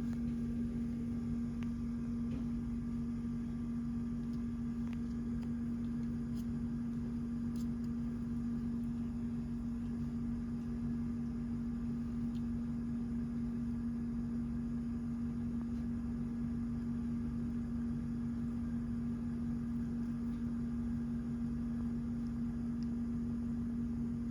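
A steady machine hum with one strong unchanging tone, and a few faint ticks.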